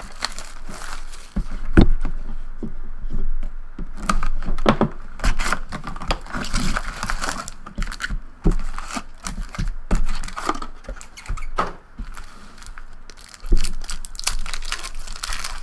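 Plastic and paper packaging of a sealed trading card box being torn open by hand, with irregular crinkling, tearing and light knocks of the box and packs on the table.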